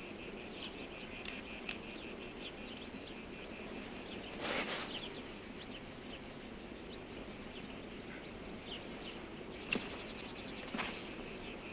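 Quiet outdoor ambience of insects trilling steadily, with scattered short bird chirps. A brief rush of noise comes about four and a half seconds in and again near the end, with one sharp click just before the second.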